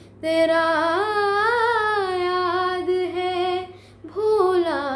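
A young voice singing a ghazal, drawing out a long ornamented vowel that rises and falls in pitch, then breaking off briefly about four seconds in before starting the next phrase.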